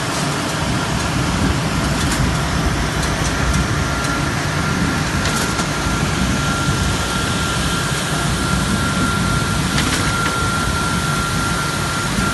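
Industrial crate tipper and crate washer running: a steady, loud machine noise with a faint high whine and a few sharp clacks.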